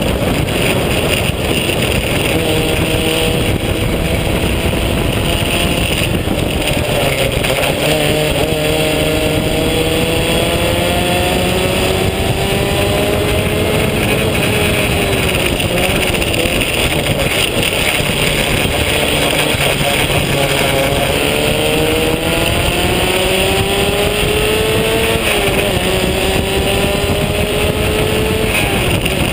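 Open-wheel vintage race car engine heard from its own cockpit at racing speed, the revs climbing steadily through a gear and dropping sharply at each upshift, twice clearly. Constant wind noise runs under it.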